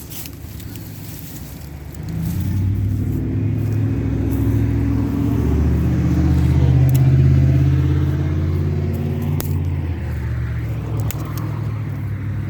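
A motor vehicle's engine passing close by. It grows louder from about two seconds in, is loudest around seven seconds, then eases off slightly.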